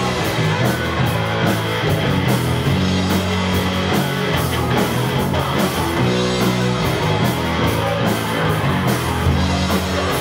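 Live rock band playing an instrumental passage without vocals: electric guitar and bass guitar chords over a drum kit.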